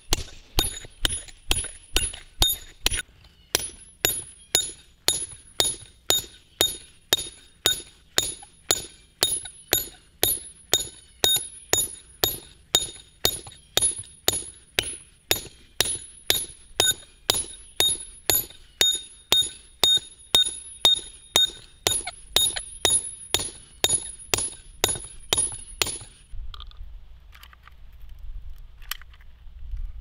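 Hammer striking a hand-held steel drill rod boring into a granite boulder: steady, even blows about two a second, each with a bright metallic ring. The blows stop near the end.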